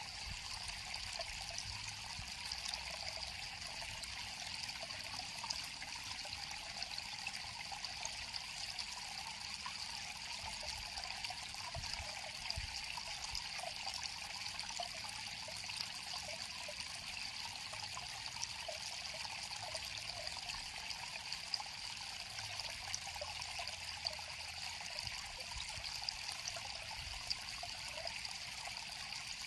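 River water flowing and trickling steadily, a continuous hiss dotted with small splashes.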